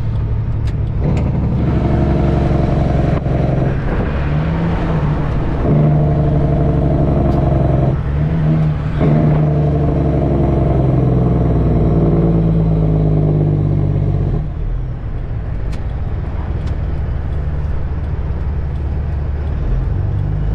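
Semi-truck diesel engine running under load. Its note breaks off briefly a few times early on and eases off and quietens about fourteen seconds in.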